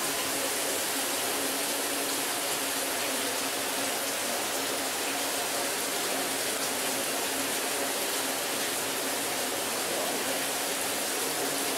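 Water pouring and splashing over a waterwheel in a steady rush.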